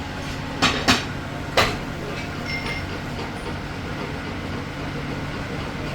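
Steady machine-shop background noise, with three sharp knocks between about half a second and two seconds in.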